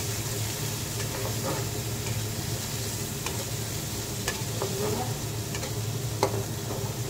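Freshly added sliced onions sizzling in oil in a nonstick kadai, stirred with a spatula, with a few sharp taps and scrapes of the spatula against the pan. This is the start of frying the onions down until they brown.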